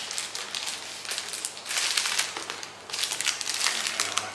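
Plastic courier mailer bag crinkling and rustling in uneven bursts as it is cut open with scissors and handled.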